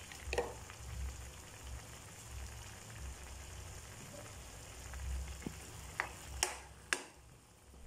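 Beef stew in mechado sauce bubbling and sizzling in a pan, a steady low hiss. Near the end a spatula goes in to stir, with a few sharp clicks against the pan.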